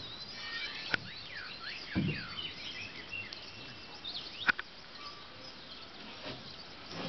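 Several small birds chirping and calling, many short quick whistled notes, with two sharp clicks about one and four and a half seconds in and a low bump about two seconds in.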